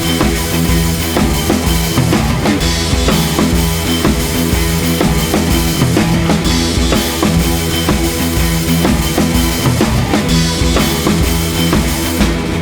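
Loud background music with a driving rock drum beat.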